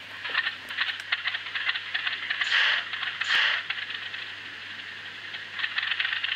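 N gauge Graham Farish Class 37 model locomotive running, its DCC sound decoder playing the Class 37 diesel engine sound through a tiny speaker, thin and rattly, over a fast clicking from the wheels on the track. Two short louder rushes come about two and a half and three and a half seconds in.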